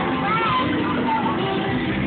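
Rock music with guitar playing steadily.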